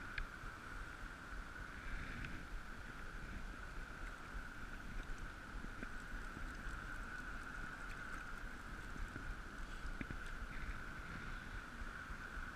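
Steady rush of flowing river water close to the microphone, over a low rumble, with a few faint clicks.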